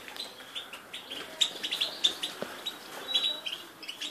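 European goldfinch singing in an aviary: quick runs of short, high chirps and twitters.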